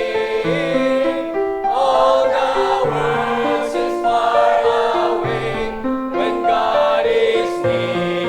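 Church choir singing a sustained hymn passage in several parts, with piano accompaniment.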